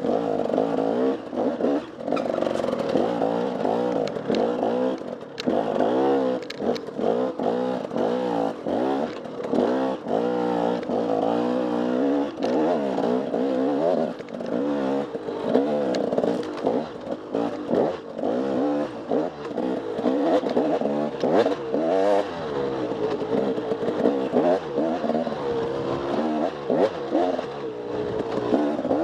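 Off-road enduro motorcycle engine revving up and down over and over as the throttle is worked and gears change, with scattered sharp clicks and knocks.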